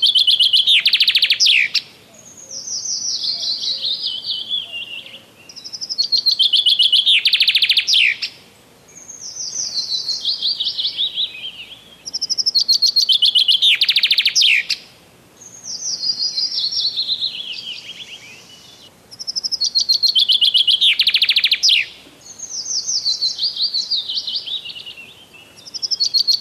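Songbird singing: a phrase about every three seconds, alternating a fast trill that ends in a quick downward sweep with a falling series of quick notes. The trill phrases are the louder of the two.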